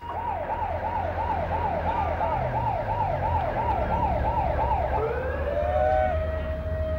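Police siren yelping, its pitch sweeping up and down about three times a second. About five seconds in it switches to a rising tone that holds steady, with a low rumble beneath.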